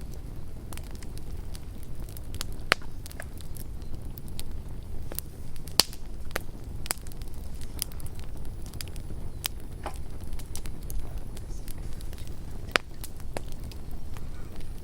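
Campfire burning with a steady low rumble and irregular sharp crackles and pops, a few louder snaps standing out.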